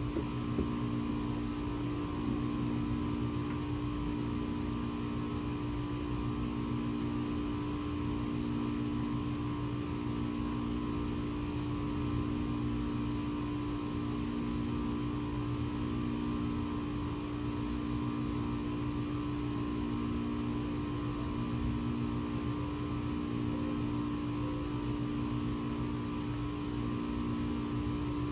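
Steady machine hum with a faint throb that swells about every two seconds, and a small knock near the start.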